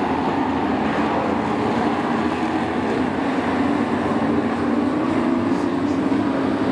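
Engines of a field of short-track race trucks running together around the oval, a steady loud drone with a slightly wavering pitch.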